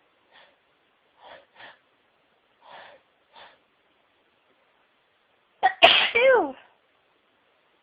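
A woman's sneezing fit: a few faint, short catching breaths as a sneeze builds, then one loud sneeze about six seconds in, ending in a voiced 'choo' that falls in pitch.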